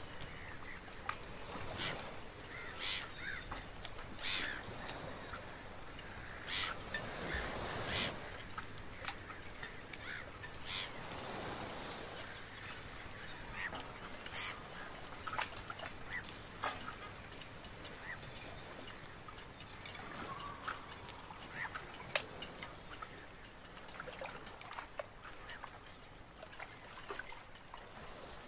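Outdoor stream ambience: a faint steady wash of moving water with irregular bird calls over it, the louder calls coming in the first third.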